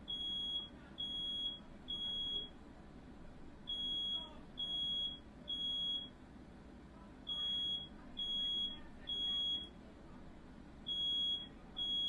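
Smoke alarm sounding in the standard three-beep pattern: groups of three loud, high, steady beeps with a short pause between groups, repeating. The alarm has been set off by smoke from a firework that caught fire indoors.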